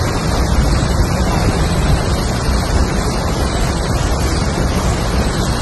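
Loud, steady rushing noise with a heavy low rumble: wind buffeting the microphone while moving through floodwater, with water rushing past.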